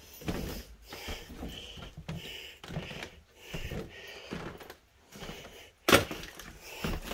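Footsteps crunching over debris and broken wood on a littered floor, an irregular run of small cracks and scuffs, with one loud sharp crack about six seconds in.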